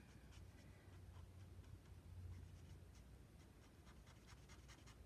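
Faint scratching of a felt brush-pen tip stroking and dabbing across smooth Bristol paper as colour is blended into a letter, in many small strokes. A low steady hum sits underneath.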